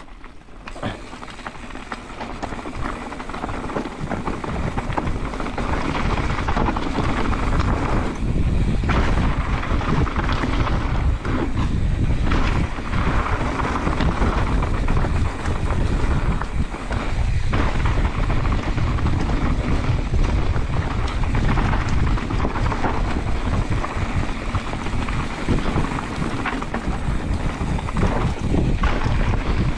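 Wind buffeting the microphone of a mountain bike's onboard camera on a fast dirt-trail descent, mixed with the rumble of knobby tyres on dirt and knocks as the bike hits bumps. It builds over the first few seconds as speed picks up, then stays loud.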